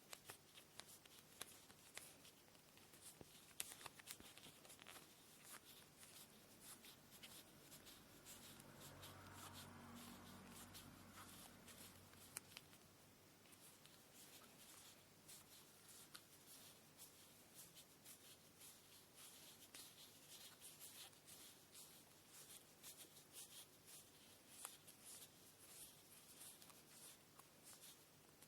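Faint rustling and small scattered clicks of hands handling cotton thread while preparing a kumihimo braid. A soft low hum swells briefly around the middle.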